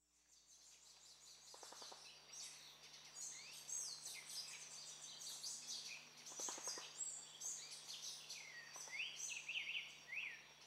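Faint chorus of rainforest birds: many overlapping chirps and short whistled glides, fading in over the first few seconds. Twice, a short low rattling call sounds.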